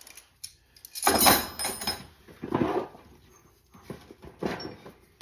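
Metal hand tools being handled and set down while a tool bag is rummaged: a few short clattering, rustling bursts.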